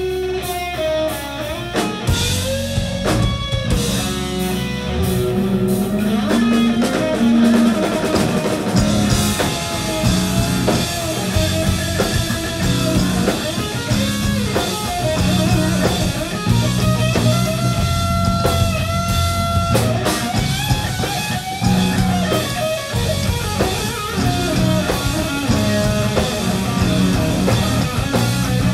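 Live rock band playing an instrumental passage: an electric guitar line of held notes that bend in pitch, over bass guitar and a drum kit, with cymbals filling in about a third of the way through.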